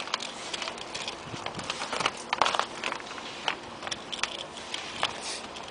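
Polyethylene root-barrier sheet crinkling and rustling as it is pulled and cut around a roof drain, with irregular sharp clicks and crackles from the plastic and the cutter.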